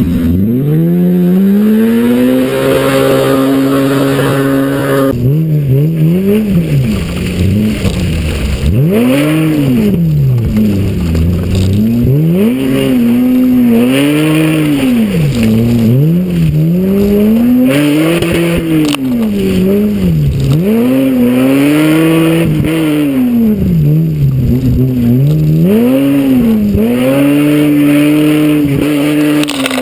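Mitsubishi Magna's V6 engine revving hard and easing off over and over, its pitch climbing and dropping every couple of seconds, as the car is thrown around a wet clay gymkhana course. The tyres spin and churn through the mud, which can be heard under the engine.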